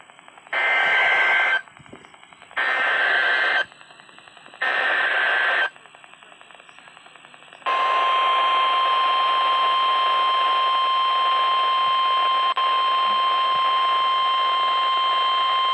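NOAA Weather Radio Emergency Alert System signal heard over a radio receiver with hiss. First come three one-second bursts of the SAME digital header, a harsh warbling screech repeated a second apart. About two seconds later a long, steady, piercing warning alarm tone starts. Together they announce a tornado warning.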